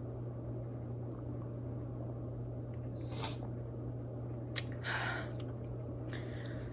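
A person drinking apple juice: a few soft, short sips and breaths out. Under them runs a steady low hum.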